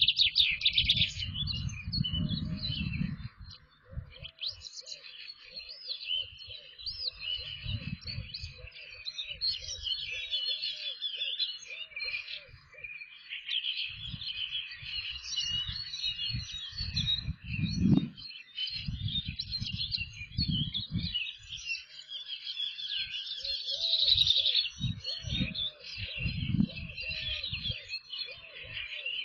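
Small songbirds singing and chirping continuously. Intermittent low rumbling bursts, the loudest sound, run under them, along with a lower note repeated about once or twice a second.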